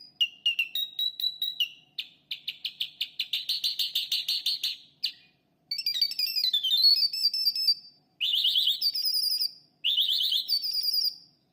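A jal, a lark kept as a songbird, singing a fast, varied song of rapid trills and whistled phrases, broken by short pauses.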